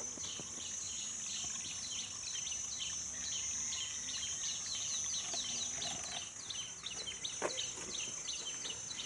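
Outdoor garden ambience: a steady high insect drone with a continuous run of short, high, falling chirps repeating about three to four times a second.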